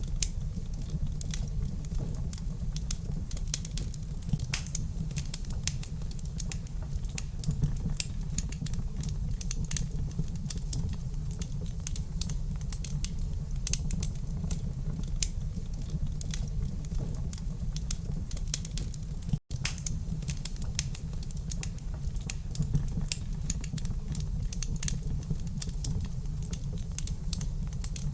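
Wood fire in a fireplace crackling, with many irregular sharp pops and snaps over a steady low rumble. The sound cuts out for an instant about two-thirds of the way through.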